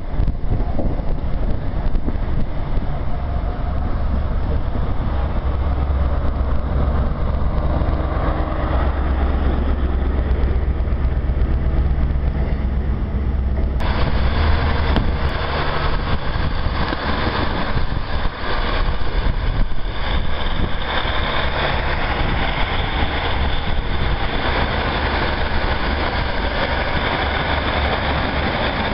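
Diesel multiple-unit trains: one pulls away with a steady low engine rumble, then after a sudden cut about halfway through another runs past close by, its engines and wheels on the rails filling in more high-pitched noise.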